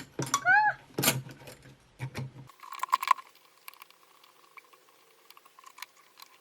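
Metal clicks and rattles of a Singer 86662 buttonholer attachment being fitted to a vintage Singer 99K sewing machine and its screw being done up where the presser foot was. There are a few sharp clicks in the first couple of seconds and a short rising-and-falling squeak about half a second in, then light ticking.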